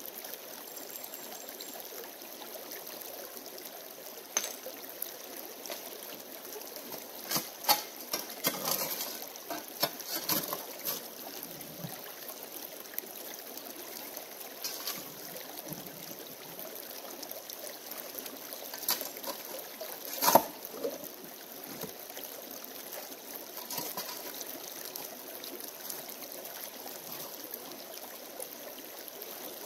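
Shallow creek trickling steadily over stones, with scattered scrapes and clacks of a shovel digging paydirt from the stream gravel, the loudest knock about two-thirds of the way through.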